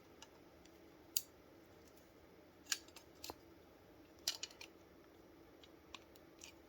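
About eight faint, scattered clicks and taps of small metal and plastic airgun parts being handled, as the knurled trigger pin is pressed into the Daisy Powerline 880's trigger group.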